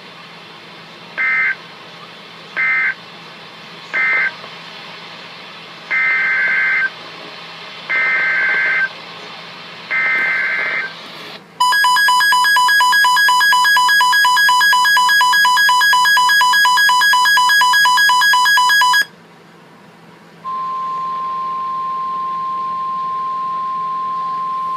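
Emergency Alert System tones for a severe thunderstorm warning: six warbling beeps of the SAME data header, three short then three longer, followed by the loud, harsh two-tone EAS attention signal for about seven seconds, which cuts off suddenly. After a short gap comes one steady single tone.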